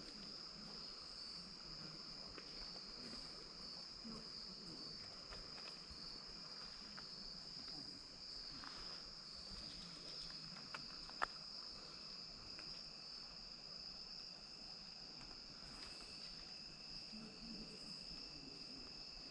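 Evening insect chorus: a steady high-pitched drone, joined by a second, lower steady note near the end. A single sharp click a little past halfway.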